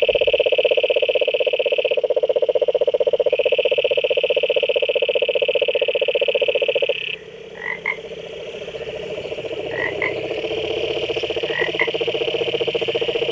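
Tree frogs calling: a loud, fast-pulsed trill that stops about seven seconds in, followed by quieter trilling with a few short chirps.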